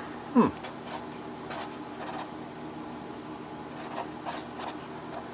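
Writing by hand on paper: clusters of short scratchy strokes, jotting down a capacitor value, over a steady low hum.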